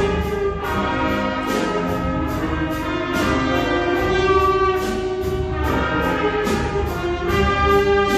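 Children's elementary-school wind band playing: brass and woodwinds holding chords and a melody whose notes change every second or so, at a steady level.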